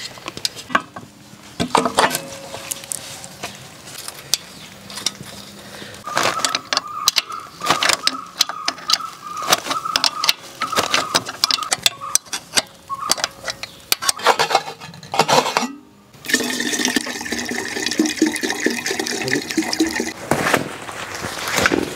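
Small clicks and knocks of hands working on a Honda engine-driven water pump, then, in the last few seconds, fuel poured from a plastic can into the pump engine's tank, a steady stream of liquid filling it.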